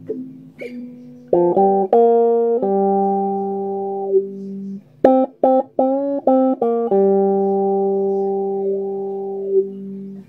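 Homemade breadboard synthesizer circuit playing a riff of buzzy electronic notes through a small speaker. There are two bursts of short stabbed notes, each followed by a long held note that dips in pitch just before it cuts off.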